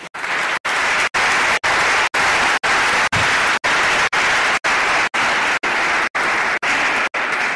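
Conference audience applauding steadily. The clapping is cut by brief regular dropouts about twice a second.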